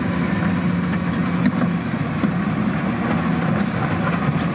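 Diesel engine of a DISD SD300N wheel loader running steadily, with a constant low hum, as the loader works its bucket through a pile of broken rock.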